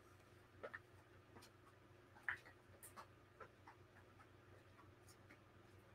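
Near silence: room tone with a steady low hum and a few faint, scattered clicks.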